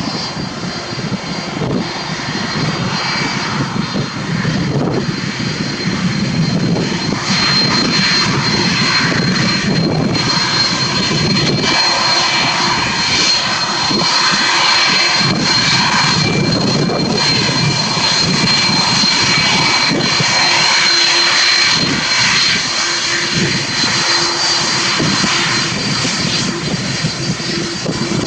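Jet airliner engines at takeoff power: a loud, steady rush of noise with a thin high whine running through it. A low rumble is strongest for the first dozen seconds, then the sound thins to more hiss and whine.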